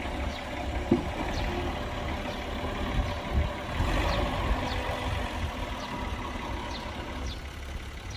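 Heavy construction machinery engine running steadily, with a sharp knock about a second in.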